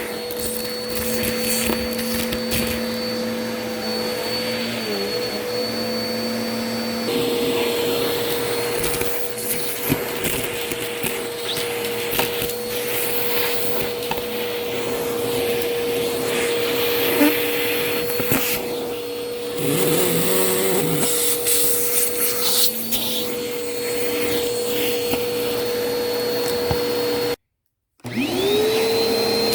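Vacuum cleaner running steadily, with crackling and crunching as it sucks up crunchy debris. Near the end the sound cuts out for a moment, then the motor spins back up to speed.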